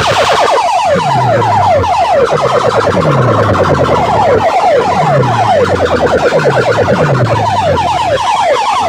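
Competition sound-system loudspeakers blasting a siren-like electronic effect: rapid falling chirps in quick runs, with a deep falling bass sweep about once a second.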